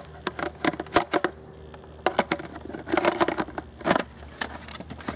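Irregular clicks, knocks and rubbing of hard plastic as a leg of a large Mattel Super Colossal Carnotaurus toy figure is handled and pushed onto its hip joint.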